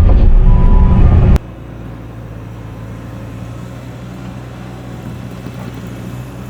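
Diesel engine of a Bobcat T650 compact track loader running loud under work. About a second and a half in, the sound drops suddenly to a much quieter, steady engine hum.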